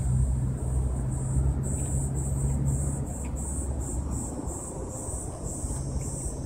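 Cicadas buzzing in a high drone that breaks into an even pulsing of about two to three beats a second, over a low steady hum that fades out about three seconds in.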